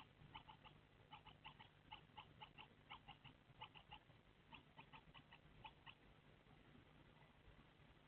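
Week-old Eurasian tree sparrow nestlings giving faint, rapid, thin begging cheeps, several a second, that stop about six seconds in. A steady low hum runs underneath.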